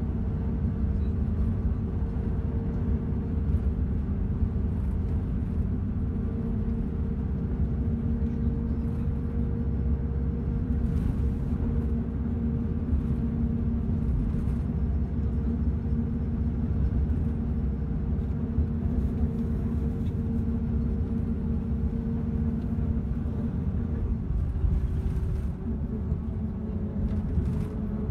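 Steady low rumble of engine and road noise heard from inside a moving road vehicle, with a constant engine hum.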